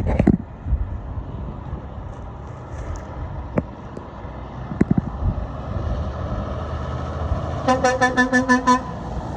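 A vehicle horn beeping in a rapid run of about eight short toots lasting just over a second, over the steady rumble of road traffic.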